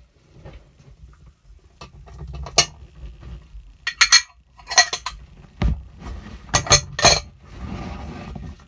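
Plastic petri dishes handled with gloved hands: an irregular series of sharp clicks and clacks as dishes and lids knock together, then a brief scraping rustle near the end.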